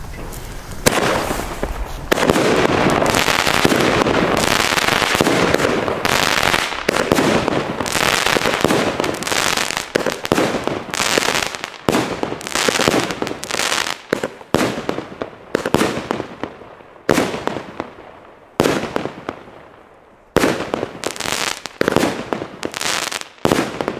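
Klasek Best Price 30/16 firework battery, 16 shots of 30 mm calibre, firing its shells. The launches and star bursts run together into a dense barrage for the first half, then come as separate bangs toward the end.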